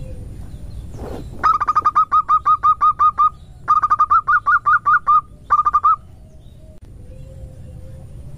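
Female zebra dove (perkutut) calling a quick staccato run of notes, about five a second, in three bursts with short pauses, the betina lure call used to draw in wild zebra doves. A low rumble runs underneath, with a single knock about a second in.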